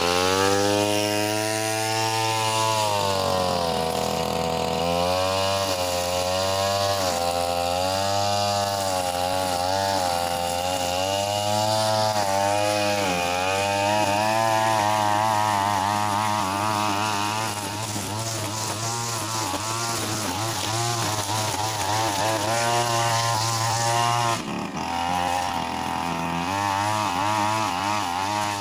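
Backpack brush cutter's small petrol engine running hard, its pitch rising and falling over and over as the throttle is worked while cutting grass and weeds. The sound breaks off briefly about 24 seconds in, then picks up again.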